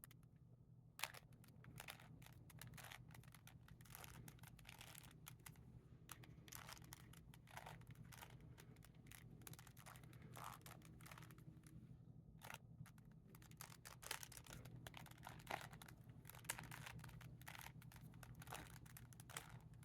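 Plastic Rubik's Cube being turned by hand: faint, irregular clicking of its layers rotating, in quick runs.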